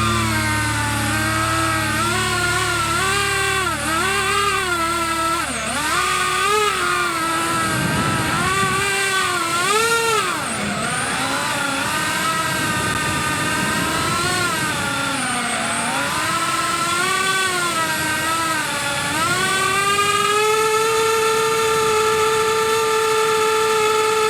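FPV cinewhoop drone's motors whining, the pitch rising and falling with the throttle. The whine holds steady for the last few seconds.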